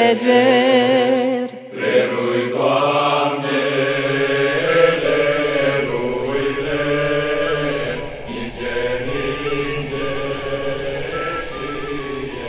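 The end of a Transylvanian colind: a held sung note with vibrato that stops about a second and a half in, then sustained chanting voices holding a drone. A woodwind melody enters over it in the second half as the music fades.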